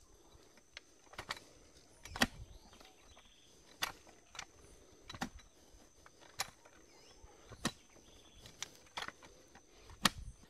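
Clamshell post-hole digger (boca-de-lobo) being jabbed into packed soil, digging a deep post hole: about eight sharp strikes, a little over a second apart.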